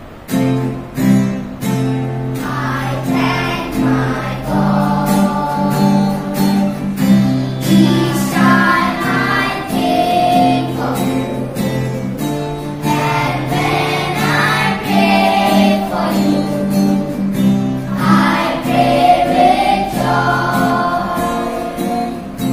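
A sung prayer: singing voices over a held instrumental accompaniment with a steady beat. It starts abruptly.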